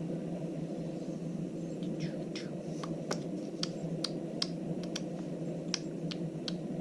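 Pokémon trading cards being flipped through one by one, giving a series of light, sharp clicks that come about one or two a second from around the middle on, over a steady low hum.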